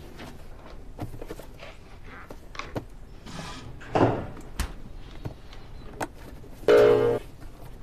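Household handling sounds: soft knocks, clicks and rustles, with footsteps, as a cardboard cake box is taken from a refrigerator and set down on a table. A louder rustling burst comes about four seconds in and another shortly before the end.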